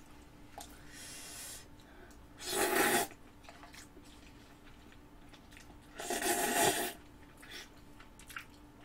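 Noodles slurped from a fork, twice, each slurp a short hiss of under a second.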